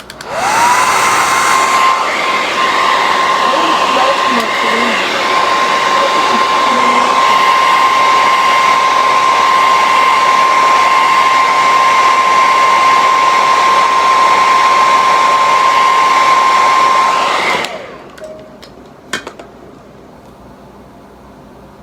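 Handheld hair dryer switched on, its motor whine rising to a steady pitch within half a second, then blowing steadily and loudly with a constant high hum for about seventeen seconds before cutting off. A couple of faint clicks follow.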